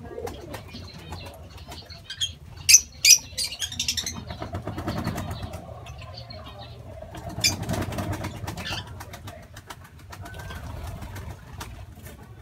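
A flock of lovebirds feeding, giving a few short, sharp chirps clustered about three seconds in and fainter chirps throughout, with wing flaps as birds hop and fly up onto the wire mesh.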